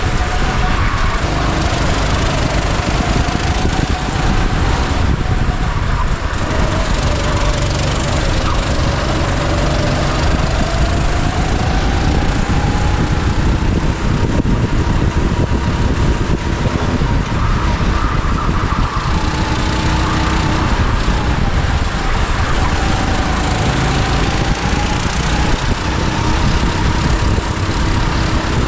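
Go-kart engine running on track, heard close from an onboard camera, its pitch repeatedly rising and falling as the throttle comes on and off, over a loud steady rush of noise.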